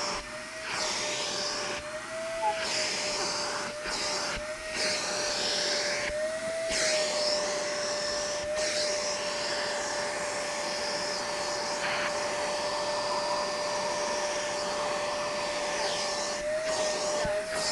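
Vacuum cleaner running steadily as it is worked over a cat's fur: a continuous motor whine over a rush of air. The whine's pitch rises briefly a few times and the airflow sound drops out for a moment now and then.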